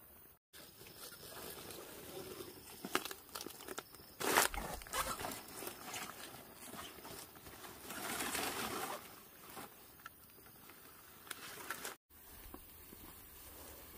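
Papaya leaves and flower stalks rustling and crackling as they are handled and pushed into a woven basket, with many small snaps and clicks and two louder rushes of rustling, about four and eight seconds in.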